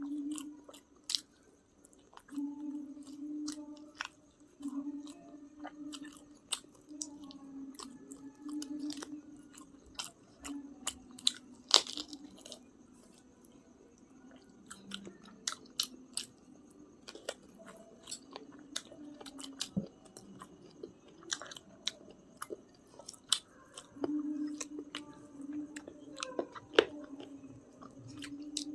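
Close-up mouth sounds of someone eating chicken biryani: chewing, lip smacks and crunchy bites as sharp clicks at an irregular pace, the loudest about twelve seconds in, with a low hum that comes and goes underneath.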